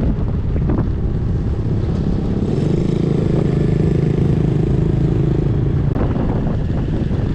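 Motorcycle engine running with a steady low rumble that grows stronger for a few seconds in the middle, with a few light clicks.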